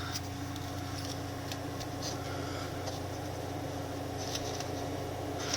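Furnace running with a steady hum, a few faint light ticks over it.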